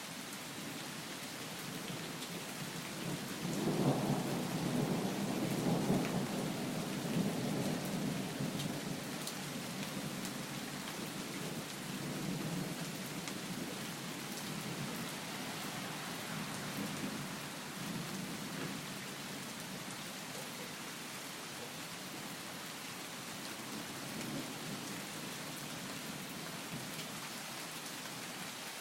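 Steady rain hissing, with a low rumble of thunder that swells about three seconds in and slowly dies away over the next several seconds; fainter rumbles come and go later.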